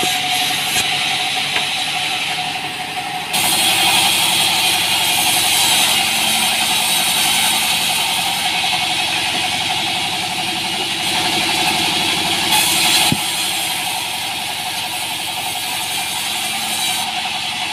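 Band sawmill running steadily, its engine droning under the hiss of the blade cutting through a small log. The sound changes abruptly about three seconds in, and the hiss eases about thirteen seconds in.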